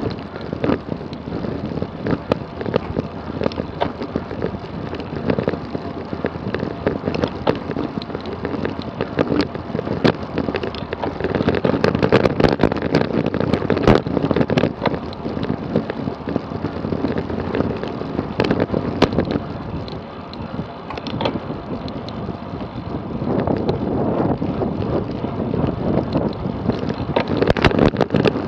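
Wind buffeting the microphone of a camera riding on a road bike at speed, over tyre and road noise, with many scattered sharp clicks and knocks from the bike on the road. It grows louder from about twelve seconds in, and again for the last few seconds.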